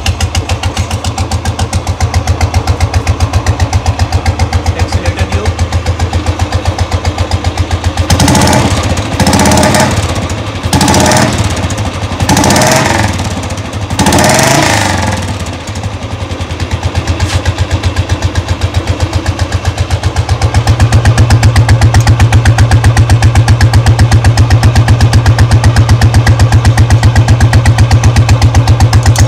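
Royal Enfield Bullet 350's single-cylinder engine idling with its steady thump through an aftermarket chrome silencer. About 8 s in come five short, louder surges over some seven seconds, and from about 20 s the exhaust note becomes louder and deeper.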